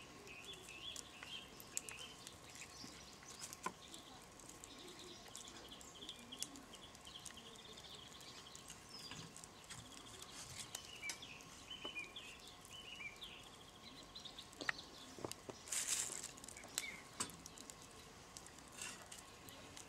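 Quiet outdoor ambience with small birds twittering in the background. There are occasional soft clicks and a short rustle about 16 seconds in, as pieces of marinated pork rib are lifted from sliced onion and laid in a wire grill basket.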